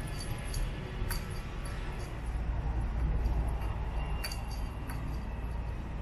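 Cat wand toy with a small bell jingling in a few brief high clinks as it is flicked about on concrete, over a steady low rumble.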